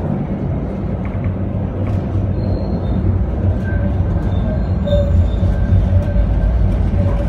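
Tram running along the street, heard from inside the passenger car: a steady low rumble that grows a little louder toward the end.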